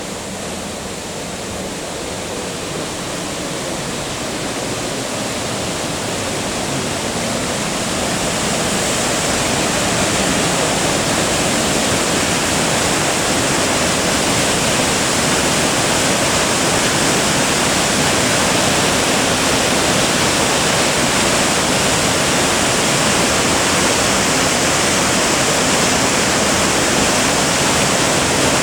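Ryūzu Falls, a mountain waterfall, rushing in a steady, dense roar of water; it grows louder over the first ten seconds or so, then holds steady.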